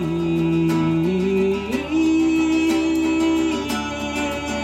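Acoustic guitar strummed in a steady rhythm, the chord changing twice.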